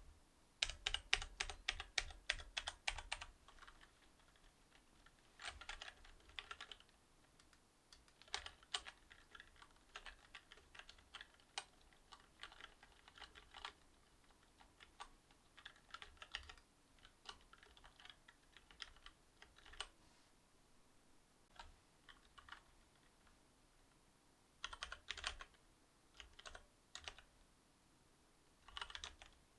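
Typing on a Cherry MX Board 8.0 mechanical keyboard with Cherry MX Silver linear switches. It starts with a fast run of keystrokes, followed by shorter bursts of keys with pauses between them.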